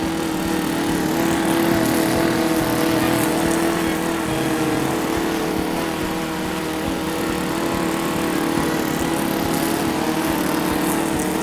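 A small motor running steadily at an even pitch, with a fast, even buzz.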